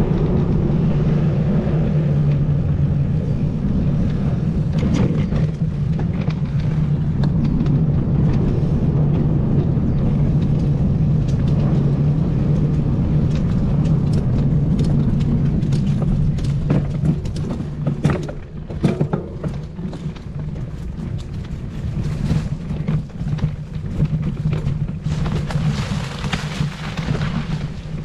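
An engine running with a steady low drone. In the last third it drops a little in level and turns uneven, with scattered knocks and bursts of noise over it.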